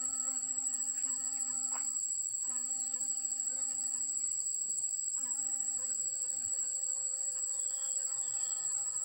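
A bee buzzing as it hovers around a flower spike, a steady low hum that cuts out briefly about two seconds in and again around five seconds, as it settles on the blossoms. Behind it, and louder, a steady shrill insect drone runs without a break.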